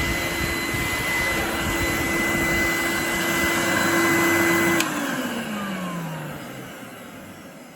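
A 1990 Numatic Henry vacuum cleaner's 1000-watt motor runs steadily with a high whine. Nearly five seconds in it is switched off with a click and winds down, its pitch falling as it spins to a stop. The owner judges the motor's top bearing fine and the bottom one in need of greasing.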